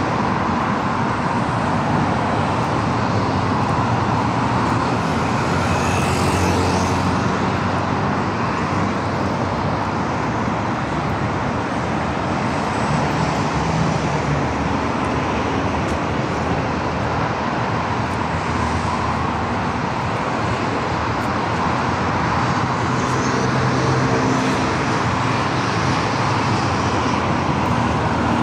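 Steady road traffic: cars and heavier vehicles passing continuously, with engine hum swelling now and then as individual vehicles go by.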